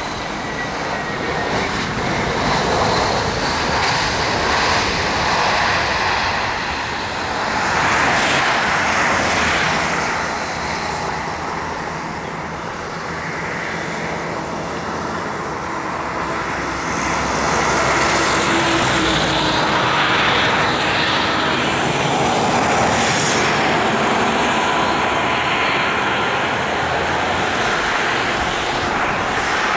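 Airbus A321 jet engines on landing, touching down and rolling out along the runway: a continuous rushing noise that swells about eight seconds in and again from about seventeen seconds on.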